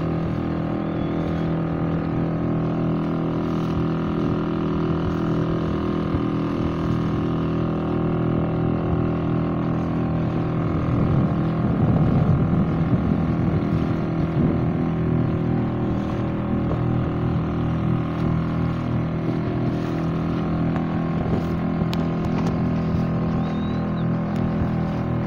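Engine of a small open boat running steadily at a constant pitch while underway, swelling briefly about twelve seconds in.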